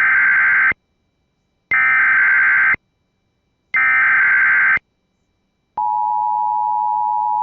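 Emergency Alert System tones: three one-second screeching bursts of the digital SAME header, about a second apart. Then, about six seconds in, the steady two-tone EAS attention signal starts and holds, announcing the tornado warning that follows.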